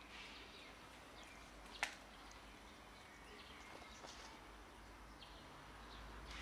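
Cats eating from a plastic food tub: faint chewing clicks over a quiet hiss, with one sharp click a little under two seconds in.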